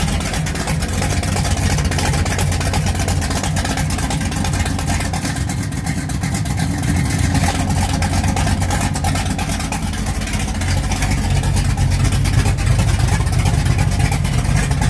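1969 Dodge Charger's engine running steadily with a loud exhaust, its note shifting slightly about ten seconds in.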